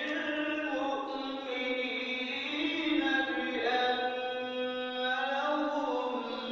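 A solo man's voice chanting verses into a microphone, drawing out long held notes that waver slowly in pitch.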